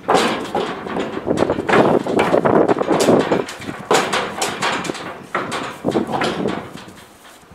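A yearling horse's hooves knocking repeatedly on the floor of a steel stock trailer as it backs out of the trailer, the knocks easing off near the end as it steps down onto grass.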